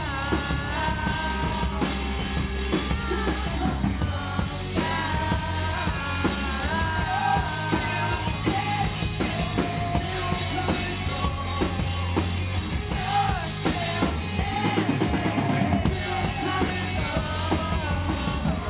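Live rock band playing: a drum kit with bass drum and snare keeping a steady beat under electric guitar, with a male lead vocal over the top.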